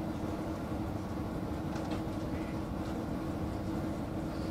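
Steady running noise of a passenger train in motion, heard from inside the carriage: a low rumble from the wheels on the rails under an unchanging hum.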